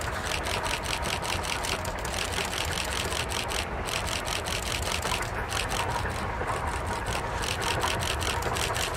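Baldwin 2-8-2 Mikado steam locomotive EBT 16 working under load, its exhaust chuffing in a rapid even beat of about five a second over a steady low rumble of the train.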